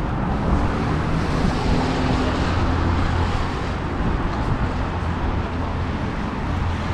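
Road traffic on a city street: a motor vehicle passing, its low engine hum swelling about a second in and fading after about four seconds, over steady traffic noise.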